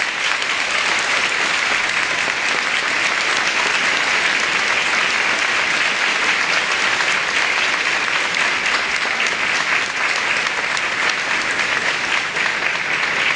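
Large crowd applauding, a dense and steady clapping.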